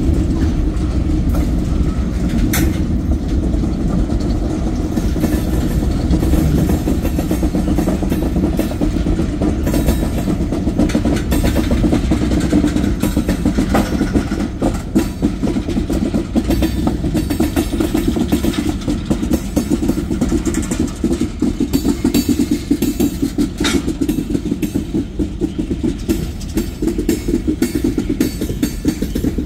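Freight train's tank cars and covered hoppers rolling steadily past: a continuous deep rumble of steel wheels on rail, with constant clicking and a few sharper clicks.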